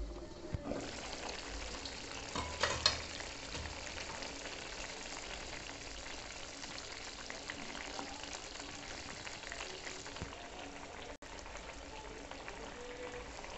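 Fish and potato curry bubbling and sizzling in an open frying pan. The sizzle comes up sharply as the lid is lifted, and a wooden spatula scrapes and stirs through it a few seconds in.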